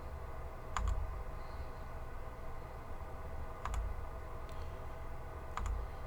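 Single key presses on a keyboard: three separate clicks, each with a dull thud, spaced two to three seconds apart, plus a fainter tick between the last two. They come from the backlight mode key being pressed to step through the lighting effects.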